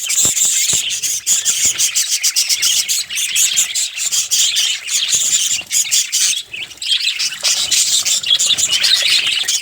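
Small pet parrots chattering, chirping and squawking continuously in a dense, high-pitched warble, with many short sharp clicks mixed in.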